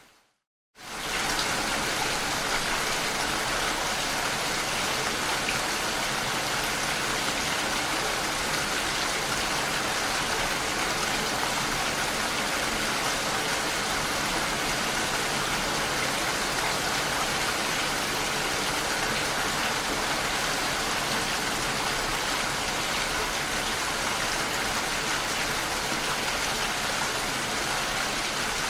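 Steady rain hitting a window, an even hiss of drops. At the very start the sound fades out to a brief silence, then the rain cuts back in about a second in, like the seam of a looped recording.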